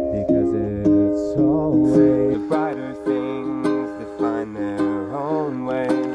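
A man singing to his own strummed Lanikai ukulele: steady chord strums, with the voice coming in about a second in and carrying a wavering melody over the chords.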